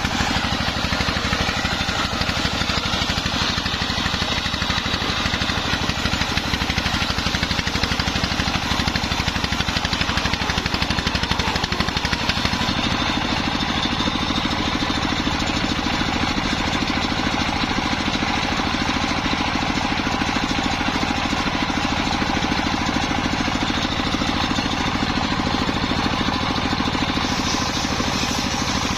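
Engine-driven circular sawmill rig running steadily, with the even pulsing of its engine throughout. The tone shifts slightly about halfway in.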